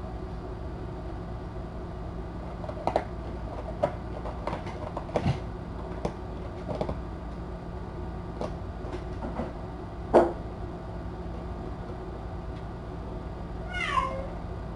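A kitten in a litter box, making scattered light clicks and scrapes with a sharp knock about ten seconds in, the loudest moment, over a steady low hum. Near the end comes one short cat meow, falling in pitch.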